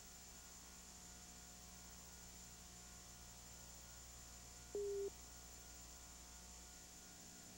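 Low, steady electrical mains hum with faint hiss, with no game sound. About five seconds in there is one short electronic beep, a single steady tone lasting about a third of a second.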